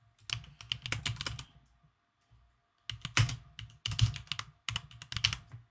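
Gaming mechanical keyboard being typed on: quick runs of keystroke clicks, with a pause of about a second and a half near the middle.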